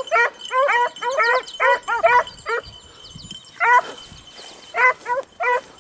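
A pack of beagles baying on a rabbit's track, giving tongue as they trail the scent. Short, high barks come in quick overlapping succession, then thin to a few scattered single barks after about two and a half seconds.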